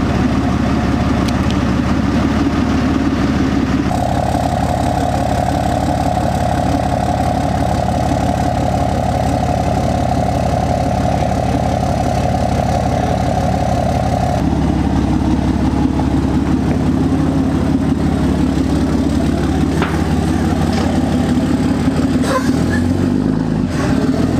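Dodge 3500 pickup's engine idling steadily, its tone changing abruptly about four seconds in and again about fourteen seconds in.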